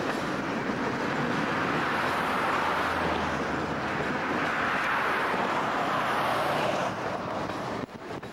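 Freight train of tank cars rolling past, a steady noise of steel wheels running on the rails, dipping briefly near the end.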